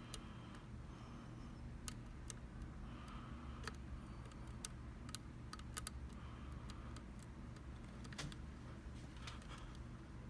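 Irregular small metallic clicks and scrapes of a lock pick working the pins inside a Mul-T-Lock MT5 cylinder, over a faint steady low hum.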